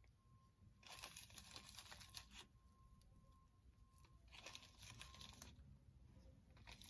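Faint crinkling of a small plastic bag as dried rose buds are picked out of it, in two spells: about a second in and again about four seconds in.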